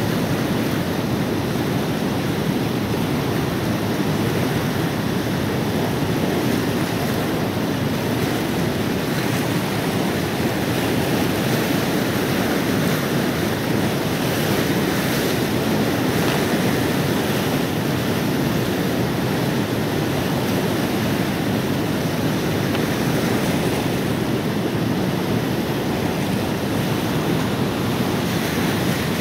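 Fast-flowing floodwater of the swollen River Nene rushing steadily, the river running dangerously high after heavy rain.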